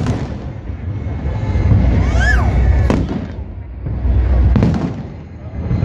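Aerial fireworks shells bursting: several sharp bangs over a continuous low rumble of booms. A short whistle rises and falls about two seconds in.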